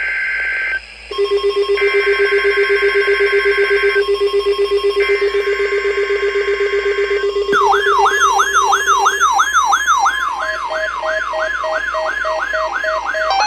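Emergency Alert System test tones. First come three bursts of screeching digital SAME header data over a steady high tone and a pulsing low buzz. From a little past halfway, a whooping siren-like alarm tone sweeps up and down about three times a second, and a beeping tone joins in near the end.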